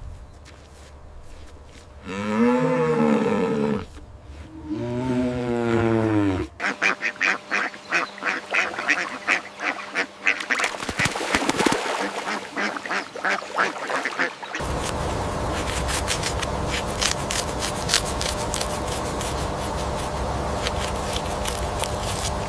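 Duck-like quacking calls: two drawn-out calls, then a fast run of short quacks. In the last third they give way to a steady noisy rustle with many clicks.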